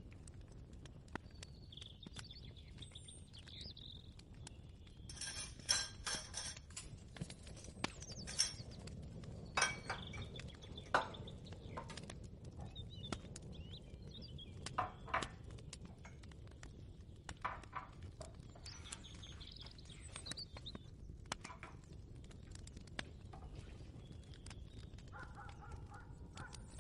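Kitchen ambience: a faint, steady low rumble with scattered clinks and knocks of kitchenware, the loudest of them a few seconds in, and a few short bird chirps in the background.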